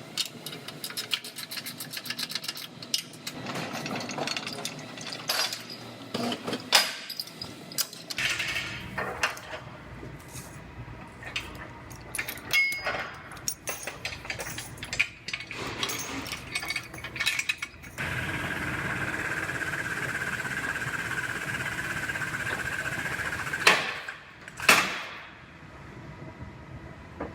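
Metal clinking and clanking as a frame machine's chains and clamps are rigged to a car's crushed frame rail for a pull. About 18 seconds in a steady machine noise with a whine starts, with two loud bangs near the end.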